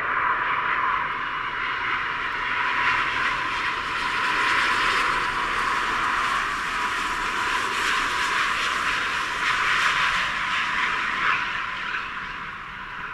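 Airbus A350-900 on final approach, its Rolls-Royce Trent XWB jet engines giving a steady rushing roar. The roar swells as the airliner passes close, then fades near the end.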